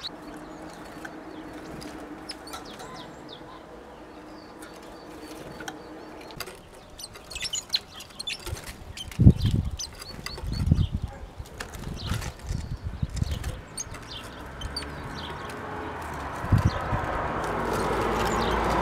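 Great tits at a wooden feeder: bursts of wing flutter and light knocks as birds land and take off close by, with scattered short high ticks. A steady rushing noise rises near the end.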